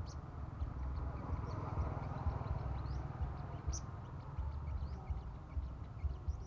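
Sunbirds giving short, high, scattered chirps and a few quick rising notes over a strong, uneven low rumble.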